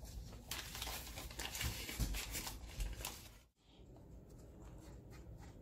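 Paper butter wrapper crinkling and tearing as it is peeled off the stick, with a few soft knocks. After an abrupt cut about three and a half seconds in, a silicone spatula scrapes faintly through flour and sugar in a glass bowl.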